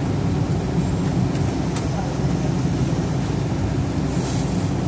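City bus engine and road noise heard from inside the passenger cabin while the bus drives along: a steady low rumble, with a brief faint hiss about four seconds in.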